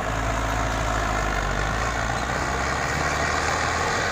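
Boat engine running steadily, with a loud rushing of wind and water over it.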